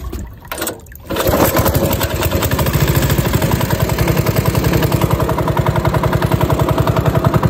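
Small boat engine starting about a second in, then running steadily with a fast, even beat of firing pulses.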